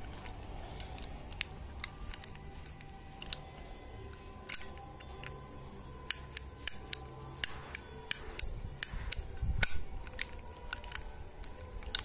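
Zippo lighter with a butane insert handled in the hand: a series of sharp metallic clicks from the case and insert, a few scattered early, then a run of them about two a second in the second half.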